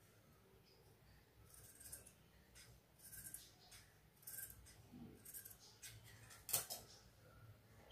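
Scissors snipping through fabric in a string of faint, short cuts, several spaced well under a second to about a second apart, the loudest one near the end.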